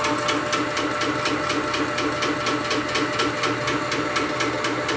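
Shoebox compressor with its belt drive upgrade, running steadily: the electric motor's hum under a fast, even ticking beat from the pump's pistons cycling.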